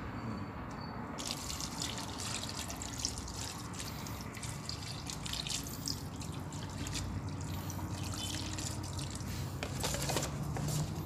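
Water running and splashing, starting about a second in and going on steadily with many small spatters.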